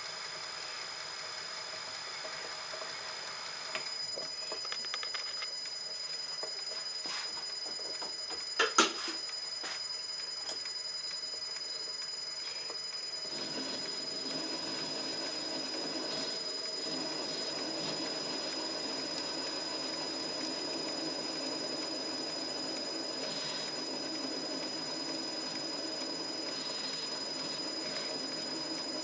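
Small metal lathe running steadily with a constant high whine, and two sharp knocks just before 9 s. From about 13 s a rasping joins in as a needle file is held against the spinning miniature valve to finish it.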